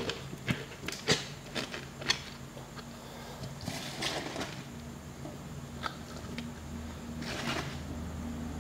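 Sliced fresh bamboo shoots pressed down by hand into a plastic jar, giving a run of crisp crunching clicks, then rustling as more handfuls of shoots are put into the jar, twice.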